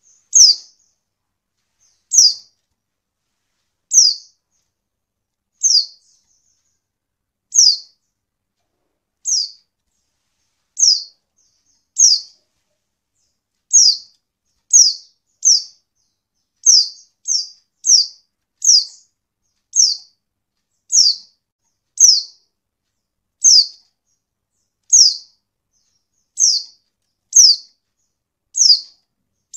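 Female white-eye (pleci) giving single short, high chirps that drop in pitch, one every second or two at first and coming quicker after the middle. This is the female call used to provoke male white-eyes into answering and singing.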